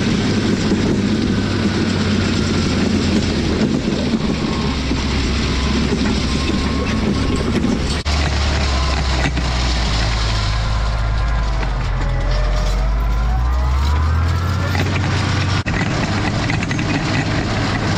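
Farm tractor engine running steadily while pulling a hay rake; its pitch sags and climbs back about two-thirds of the way through.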